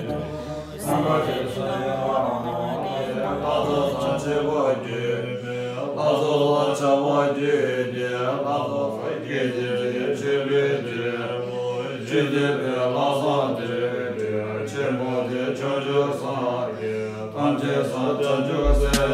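Tibetan Buddhist prayers chanted aloud from a prayer text by a monk in a steady, unbroken recitation. Just before the end, a deep bass beat of music cuts in.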